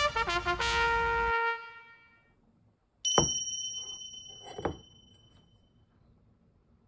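A short brass-like musical jingle whose last held note fades about two seconds in. About three seconds in comes a sharp bell-like ding with a high ringing tone that dies away over a couple of seconds, followed by a softer knock.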